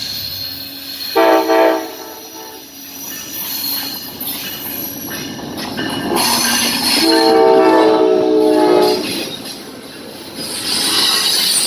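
Train horn: a short blast about a second in, then a longer blast of about two seconds, over a passing train's wheel and rail noise.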